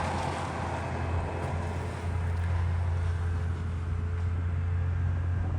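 Hedge-cutting machine running steadily in the distance: a continuous low engine drone with a faint whine above it.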